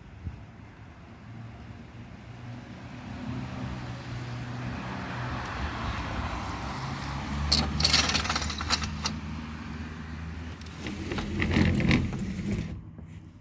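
Outdoor street traffic: a motor vehicle's low engine hum with a rising wash of traffic noise, overlaid by two runs of clattering clicks, and the outside sound cuts off suddenly near the end.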